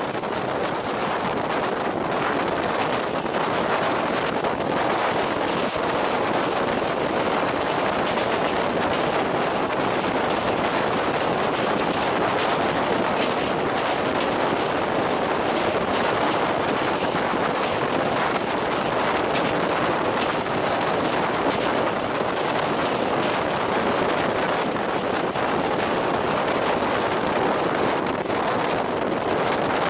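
Passenger train's wheels running fast over the rails and a steel truss bridge: a loud, steady, rapid clatter and rumble with rushing wind, heard from an open carriage door.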